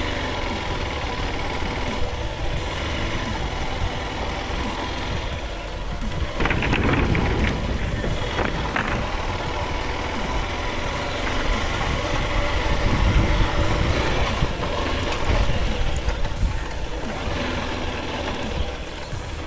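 Motorcycle engine running as the bike rides slowly along a rough dirt road, with low rumbling wind on the microphone; it gets somewhat louder about six seconds in.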